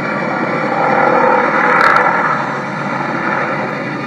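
Airplane engine noise, a steady rushing drone that swells to a peak about two seconds in and then eases off, with a short click at the peak.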